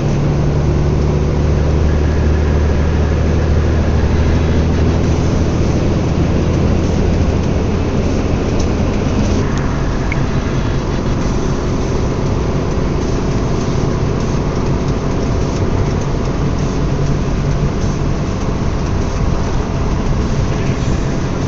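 A car driving, its engine hum and road noise heard from inside the cabin. The low hum eases a little about nine seconds in.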